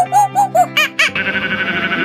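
Background music with a quick run of short, high, giggle-like notes, cut off about halfway by a long, wavering sheep bleat.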